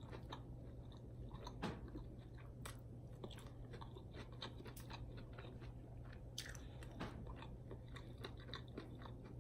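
A person chewing and biting food close to the microphone: many small, irregular mouth clicks, over a steady low hum.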